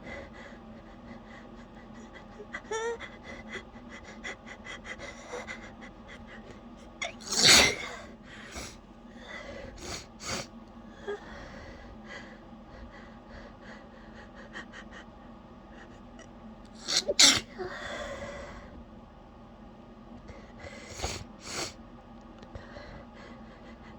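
A woman sneezing in a sneezing fit: two loud sneezes about seven and a half and seventeen seconds in, with gasping breaths and smaller, held-back bursts around them.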